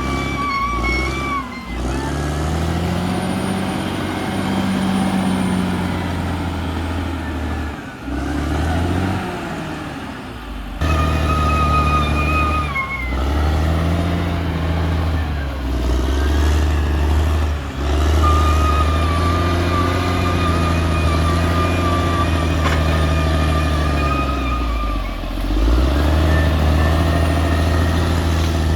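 Caterpillar D6R XL bulldozer's diesel engine working under load, its revs sagging and recovering several times, with a high steady whine over it that drops in pitch now and then.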